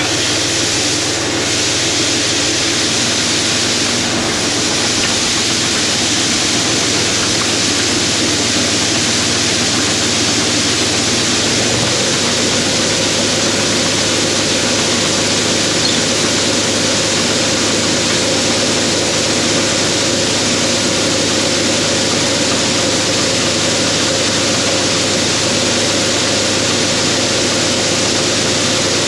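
Combine harvester running steadily: a constant engine drone under a loud, even rushing noise, with the engine note shifting slightly about twelve seconds in.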